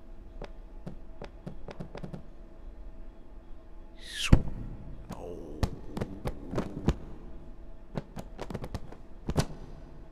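Sound-effect clatter of books shifting on a pile: scattered sharp knocks and taps, with a swish falling in pitch that ends in a hard hit about four seconds in. A faint steady hum runs underneath.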